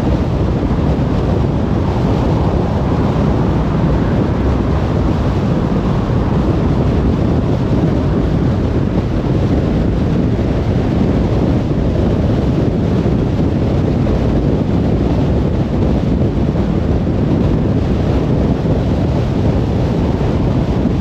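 Steady road and tyre noise of a car cruising on a motorway: an even, low rumble that does not change.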